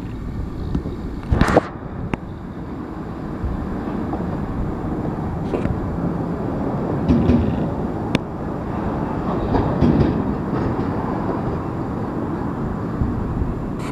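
Slow-moving freight train of tank cars rolling past: a steady rumble of steel wheels on the rails, with a few sharp clicks, the loudest about one and a half seconds in.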